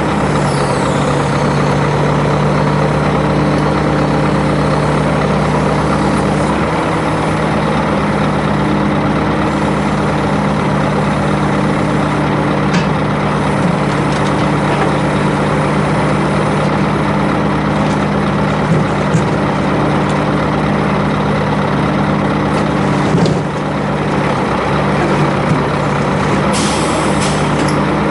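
Scania truck's engine running steadily to drive the hydraulics of its truck-mounted timber crane while the grapple loads split firewood, with a few sharp knocks of wood on wood.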